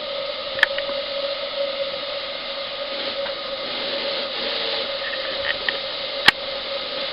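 Model live-steam boiler at full pressure, about 40 psi: steady hiss of steam from the safety valve blowing off, with a steady tone running through it, over the butane burner. Two sharp clicks, a small one about half a second in and a louder one near the end.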